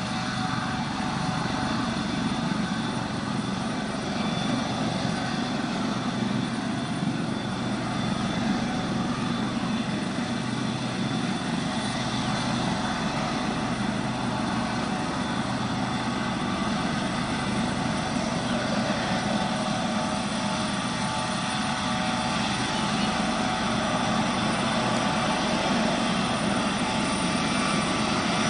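Eurocopter AS565K2 Panther military helicopter running steadily: turbine whine over the low rotor rumble, getting slightly louder near the end.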